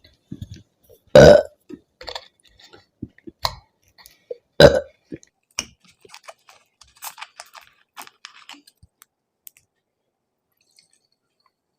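A woman burping loudly twice after chugging carbonated soda, the burps about three and a half seconds apart, with soft clicks and knocks between and after them.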